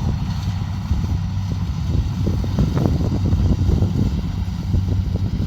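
Kubota DC70 Pro combine harvester's diesel engine running steadily under load, with irregular clicks and knocks from the machine through the middle.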